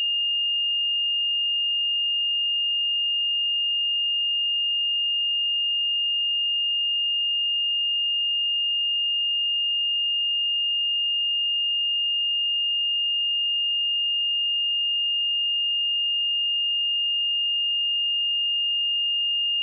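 A pure 2826 Hz sine-wave test tone, one steady high-pitched note at a constant level.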